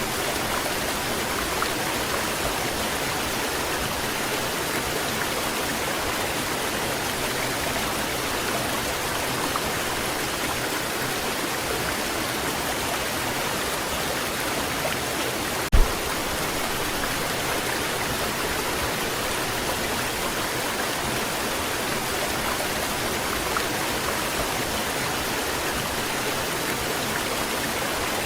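Waterfall rushing in a steady, even roar of falling water. A single brief low thump sounds about halfway through.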